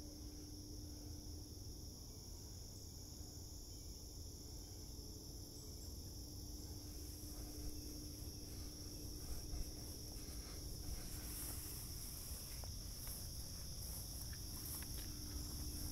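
Steady chorus of insects in the woods: a continuous high shrill trilling with no break. Faint scattered clicks and rustles come in over it in the second half.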